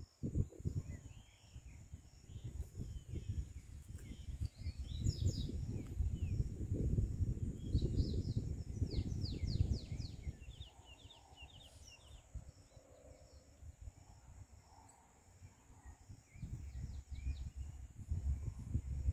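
Outdoor farm ambience: small birds chirping in quick runs of short falling notes, a few times, over a steady high insect drone, with low rumbling noise on the microphone during the first half.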